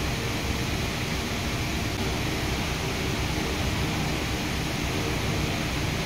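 Steady background hiss with a low rumble underneath, unchanging throughout.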